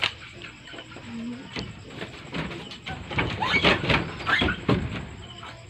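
Children squealing and laughing, with scuffling and footsteps on a wooden floor; it gets busier and louder from about three seconds in.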